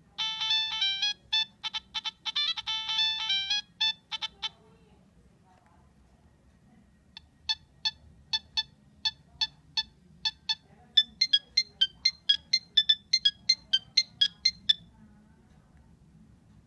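Nokia 3586 mobile phone ringtones playing through the phone's speaker. First comes a quick run of electronic beeping notes lasting about four and a half seconds. After a pause of about two and a half seconds comes a tune of short, separate beeps that come faster in their last few seconds and stop a couple of seconds before the end.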